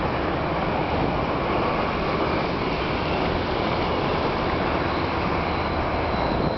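Steady rushing wind noise on the microphone of a camera carried on a moving bicycle, with a low rumble and no break.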